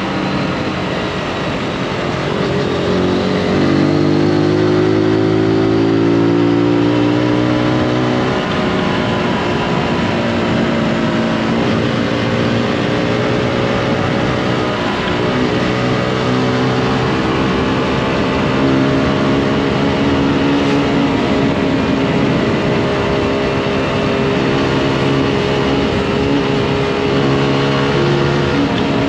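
Zontes G155 Scrambler's 155 cc single-cylinder engine pulling under way on the move: the revs climb for several seconds, fall sharply about eight seconds in, then rise and fall again through the bends. Wind rushes steadily underneath.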